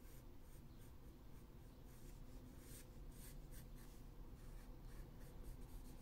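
Pencil scratching across drawing paper in faint, irregular short strokes as a curved line is sketched.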